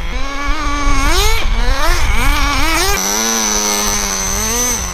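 Small two-stroke nitro engine of an HSP Warhead RC truck revving up and down under quick throttle blips as it is driven over dirt, then held high and steady for almost two seconds before dropping back near the end.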